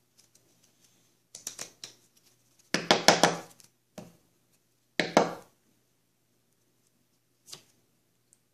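Playing cards being handled and tapped together on a wooden table: short clusters of quick clicks and rattles about one and a half, three and five seconds in, with a couple of single clicks between.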